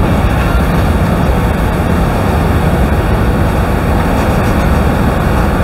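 Steady loud rush of the Rhine Falls' water pouring down close by, heard from an open tour boat, mixed with the boat's motor and wind on the microphone.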